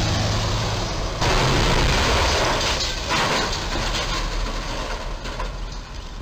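Box truck's cargo box striking the steel crash beam and rail bridge: a sudden crash about a second in, with more crunching and clatter around three seconds in, over truck and traffic noise.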